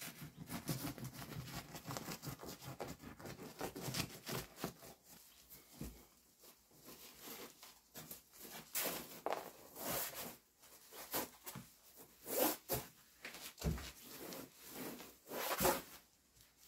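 A knife slicing through foil-faced mineral wool insulation, a continuous tearing cut for the first few seconds, then a series of separate scrapes and foil crinkles as the cut roll is handled and rolled up.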